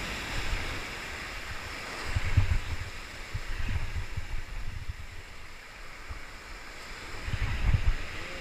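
Ocean surf washing and breaking against the rocks of a jetty, with wind buffeting the microphone in low gusts about two seconds in and again near the end.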